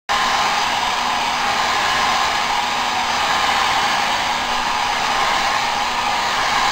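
Handheld hair dryer running steadily on a wet Chihuahua puppy, a loud even rush of air with a faint motor hum underneath. It cuts in suddenly at the start.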